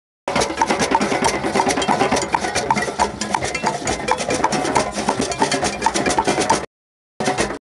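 Many hand drums, congas and djembes, played together in a dense, driving rhythm, with a higher ringing stroke recurring about three times a second over it. The sound cuts out completely for a moment just after the start and twice near the end.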